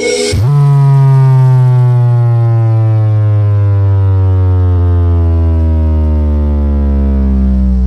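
A large horeg sound system plays a trap DJ track loudly. The music breaks off, then a single deep synth bass tone, rich in overtones, glides slowly down in pitch for about seven seconds before it stops.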